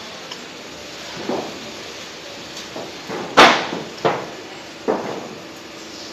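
Roof-sheet and tile roll forming machine running, blue steel sheet feeding through its forming rollers, with a steady mechanical noise and several irregular metallic clanks, the loudest a little past halfway.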